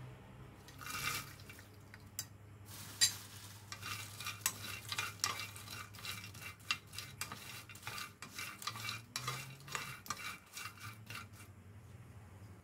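Dried shrimp, almonds and walnuts being dry-roasted in a hot nonstick frying pan, stirred with a spatula: quick scraping strokes and light clattering of the hard pieces against the pan. After a brief rustle about a second in, the stirring runs as a rapid string of sharp clicks that tapers off near the end.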